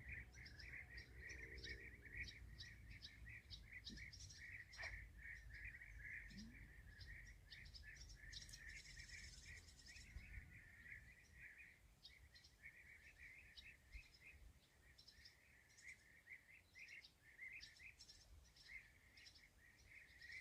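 Faint outdoor nature ambience: continuous rapid chirping from wild animals in a steady chorus, over a low rumble.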